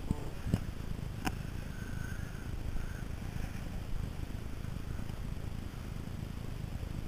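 Inflatable boat under way: the steady low rumble of its motor and the run through the water, with three sharp knocks in the first second and a half.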